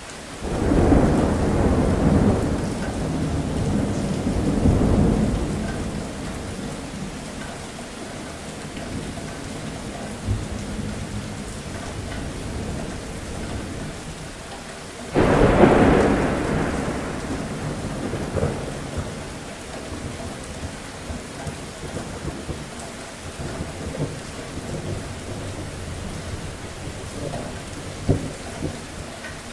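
Steady heavy rain with two rolls of thunder. A long rumble begins just after the start and swells again about five seconds in. A sharper clap comes about halfway through and rumbles away over a few seconds.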